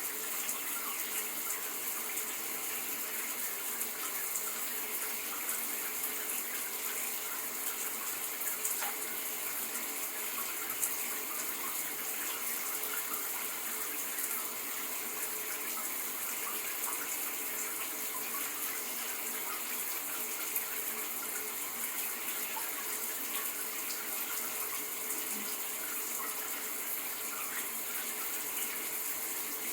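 Shower running, water spraying and splashing in a steady even hiss.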